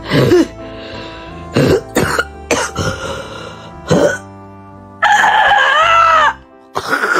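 A husky vocalizing: a string of short yelps and grumbles, then a longer call about five seconds in that rises and falls in pitch, over background music.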